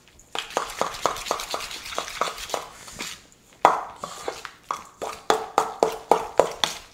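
Metal utensil stirring a moist crab cake mixture in a stainless steel mixing bowl: repeated clicks and scrapes against the bowl, a few a second, with a short pause about three seconds in followed by one louder knock.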